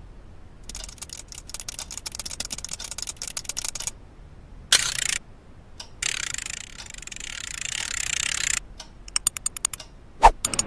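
A fast run of small clicks, broken by short stretches of hiss, with one heavier thump near the end.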